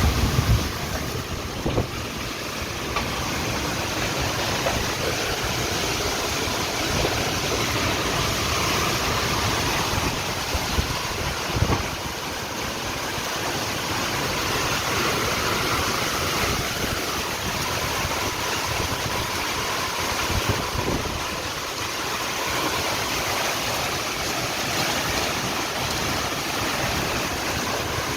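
Heavy rain falling, a steady hiss with a few low thumps.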